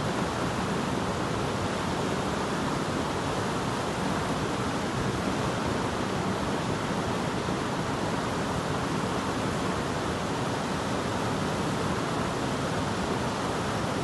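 Steady rushing of water in a rocky stream, an even, unbroken noise.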